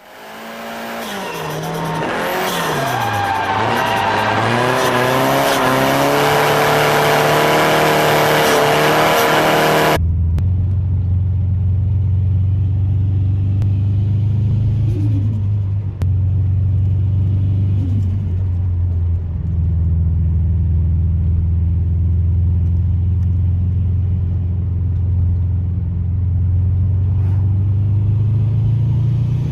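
Turbocharged car engine revving hard, its pitch climbing, falling and climbing again. After about ten seconds there is an abrupt cut to a steady, deep engine drone that shifts pitch slightly a few times.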